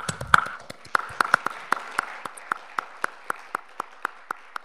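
A conference audience applauding, with one person's claps loud and close to the microphone at about four a second, the applause thinning out toward the end.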